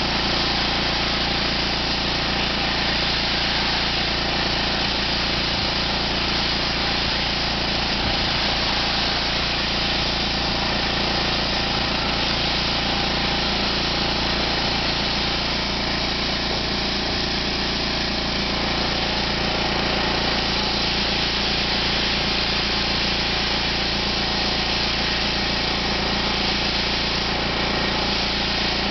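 Sandblasting a concrete pool wall: the steady hiss of the blast nozzle over a small engine running at a constant speed.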